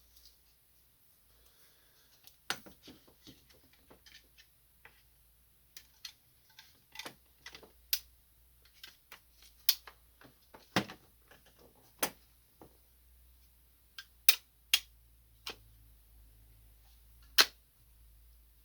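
Plastic parts of a laser printer toner cartridge clicking and knocking as they are handled and fitted together by hand: irregular sharp clicks, with a few louder snaps in the second half.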